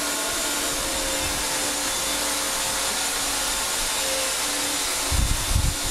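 Steady whirring hiss with a faint hum from a running bench drill press motor, with a few low thumps about five seconds in.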